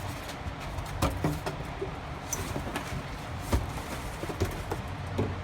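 Air compressor being lifted out of its cardboard box: scattered knocks, thumps and rustling of the box and packing. The sharpest knocks come about a second in and again about three and a half seconds in.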